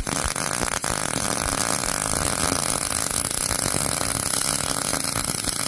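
Electric arc welding a grade 8 steel bolt onto a car wheel lock: the welding arc gives a steady, loud crackling sizzle.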